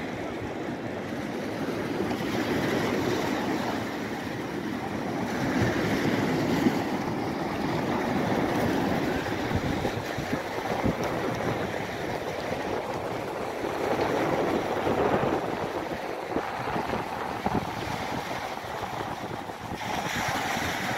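Ocean surf breaking and washing up a pebbly shore, swelling and easing every few seconds, with wind buffeting the microphone.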